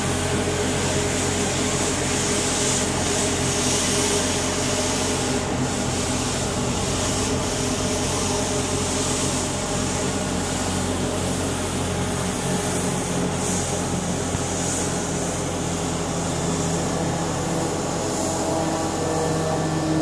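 Air ambulance helicopter running on the ground with its engines and rotor turning: a steady drone with a high hiss above it.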